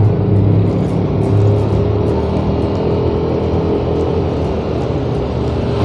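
Yamaha automatic scooter's engine running steadily as it accelerates, with wind rushing over the chest-mounted microphone.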